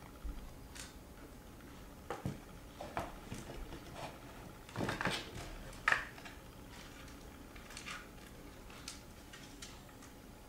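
A picture frame knocking and scraping lightly against a wall as it is worked by hand to catch its triangle hanger on a hook. A few scattered taps, then a louder scraping cluster about five seconds in that ends in a sharp click.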